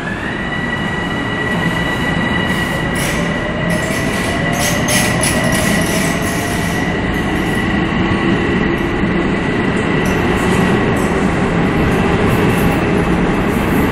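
Metro-North M7A electric train accelerating away: a steady high electric whine over the rumble of wheels on rail, growing slowly louder. A second, lower whine climbs slowly in pitch from about four seconds in, and a few sharp clicks come in the first half.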